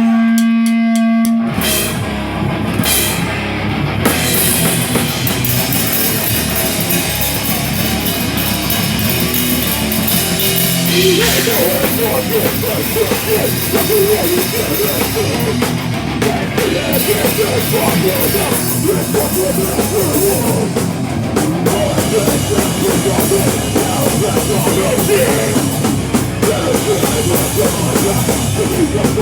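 Live heavy metal band playing: distorted electric guitars over a drum kit, kicking in fully about a second and a half in after a brief sparse opening.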